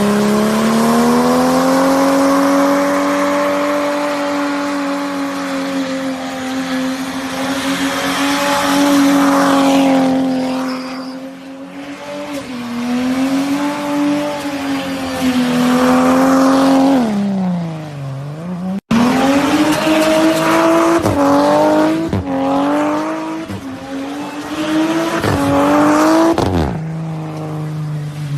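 Turbocharged Ford Barra 4.0-litre straight-six at high revs, its pitch sagging and climbing with the throttle. The revs fall steeply about two-thirds of the way through, the sound cuts out for an instant, and then it revs up again with several quick dips and climbs.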